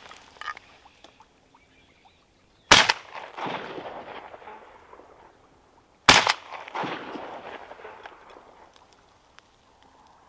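Two shotgun shots, about three and a half seconds apart, each followed by a long rolling echo that dies away over a couple of seconds.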